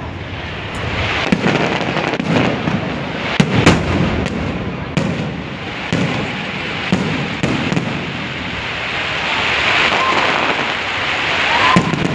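Aerial fireworks bursting: a string of sharp booms, irregularly spaced, with a stretch of fizzing crackle about three-quarters of the way through.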